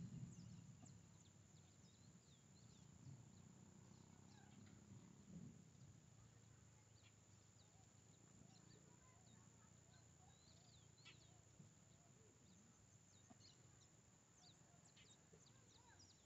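Near silence with faint, scattered bird chirps and calls in the distance.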